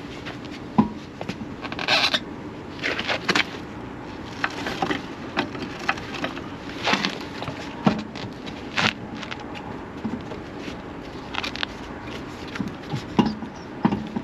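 Irregular clicks, knocks and short scrapes from wheels and hand tools being handled while a car's wheels are put back on.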